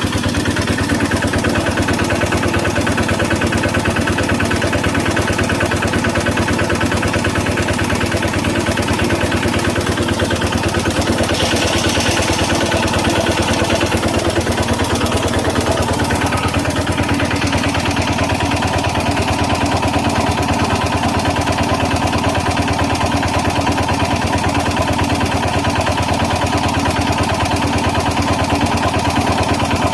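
An engine running steadily at idle with an even, rapid firing pulse, with a brief hiss about twelve seconds in and a slight change in its tone a few seconds later.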